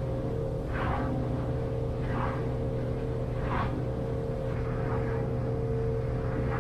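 Small pilothouse boat's engine running steadily under way, heard inside the cabin, with water rushing along the hull in surges about every second and a half.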